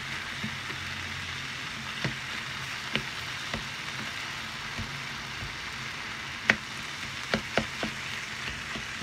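Minced meat (kefta) and chopped leeks, onions and peppers frying in a large pan with a steady sizzle. A handful of sharp clicks from the utensil knocking against the pan break through it, the loudest about six and a half seconds in.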